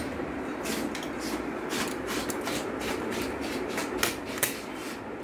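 Stiff mount-board paper rustling and crinkling as it is handled, with sharp clicks of a small handheld stapler driving staples through it to fix the paper ear on; the two loudest clicks come about four seconds in.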